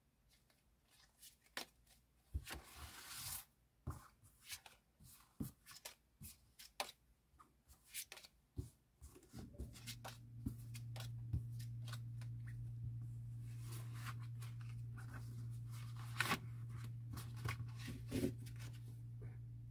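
Tarot cards being shuffled, slid and spread out on a cloth: quick flicks and scrapes of card against card. About halfway through, a steady low hum starts and runs on beneath the card sounds.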